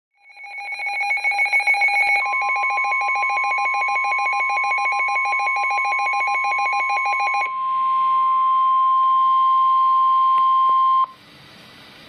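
A NOAA weather radio receiver sounding a warning alert: a rapidly pulsing electronic beep, joined about two seconds in by a steady single-pitched tone, the 1050 Hz warning alarm tone that heralds a broadcast warning. The beeping stops partway through, the tone carries on alone and cuts off abruptly near the end, leaving faint hiss.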